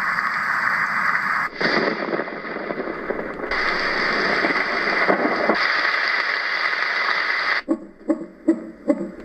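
Roffie N600 white noise machine cycling through its sound presets: a steady hiss that switches every two seconds or so between brighter and deeper noise. It ends with a short run of rhythmic pulses, about three a second.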